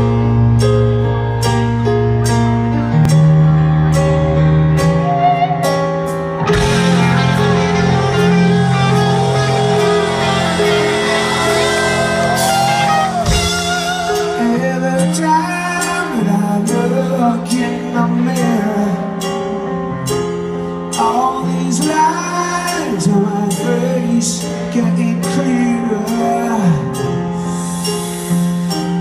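Live rock concert heard from within the audience: piano playing slow, sustained chords over the PA, with a loud swell of crowd noise partway through, then a male lead vocal singing over the piano for the second half.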